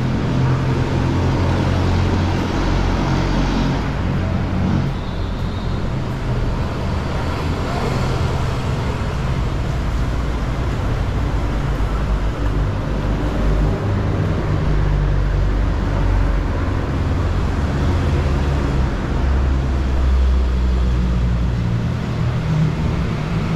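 Busy city street traffic: vehicle engines running close by, making a continuous low rumble with cars and buses passing.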